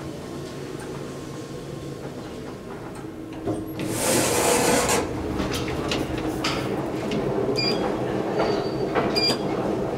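ThyssenKrupp machine-room-less traction elevator running, with a steady low hum in the cab. About four seconds in there is a loud hiss lasting about a second. Near the end come scattered clicks and a few short high beeps.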